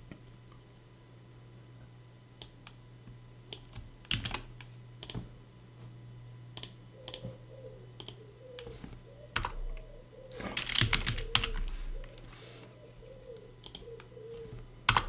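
Computer keyboard typing: scattered key clicks, with a quick burst of keystrokes about two-thirds of the way through, as a terminal command is typed in.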